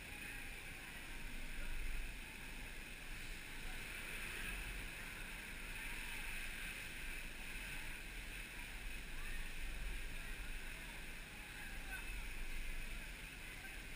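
Water-park ambience: a steady rush of running water with faint distant voices, and wind buffeting the microphone in low pulses.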